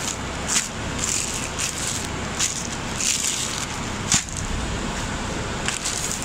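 Clear plastic shirt packaging crinkling and rustling in short, irregular bursts as the bagged shirts are handled, over a steady low rumble.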